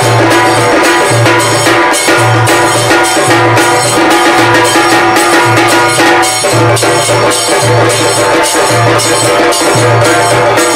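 Background music with a steady percussive beat and a bass line pulsing in short repeated notes.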